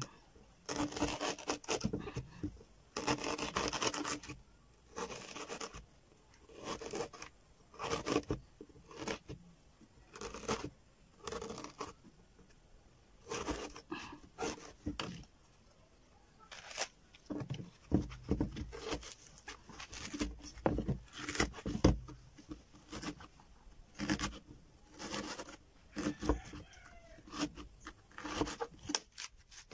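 Small kitchen knife cutting a hole into a green banana leaf midrib, with short, irregular cutting and scraping strokes through the fibrous stalk and a few dull knocks around the middle.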